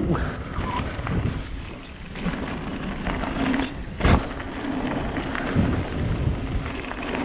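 Yeti 160e electric mountain bike rolling fast down a gravel forest trail: tyre rumble and wind buffeting the microphone, with a sharp knock from the bike over a bump about four seconds in and smaller knocks later.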